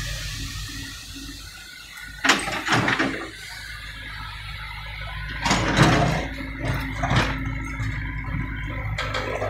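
Komatsu PC78 mini excavator's diesel engine running steadily while it works broken old asphalt, with a few loud bursts of scraping and clattering about two seconds in and again around the middle.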